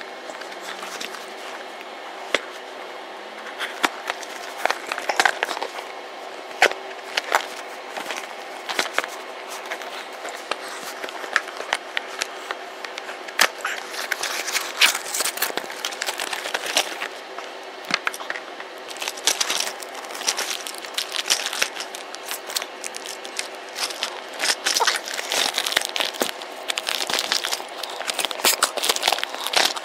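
Cardboard toy packaging being handled and opened, with scattered clicks and taps. From about two-thirds of the way in, dense crinkling of the thin clear plastic bag wrapped around the toy train as it is unwrapped.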